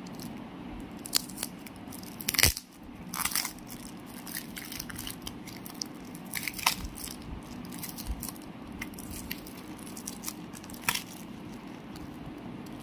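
Taped cardboard and plastic wrapping being peeled and torn open by hand: scattered crackles, rips and crinkles, the loudest a sharp rip about two and a half seconds in.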